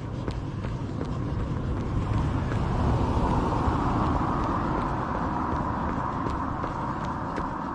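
A car passing by: engine and tyre noise swells to a peak about three to four seconds in, then fades, over a runner's regular footfalls.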